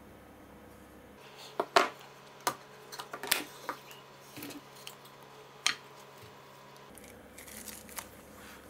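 Sharp clicks and knocks of plastic spring clamps and wooden boards being taken off a silicone mould and set down on a cutting mat, then soft rubbery rustling as the silicone mould halves are pulled apart.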